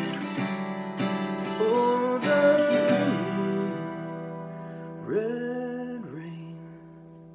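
Acoustic guitar playing the closing chords of a song. There are several strums in the first three seconds, then a last chord about five seconds in, left to ring and fade away.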